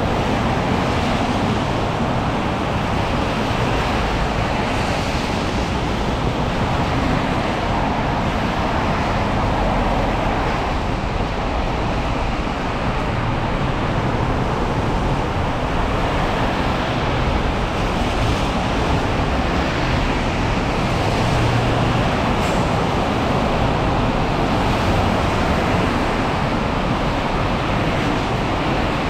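Steady noise of rain and road traffic on wet city streets: an even hiss without breaks.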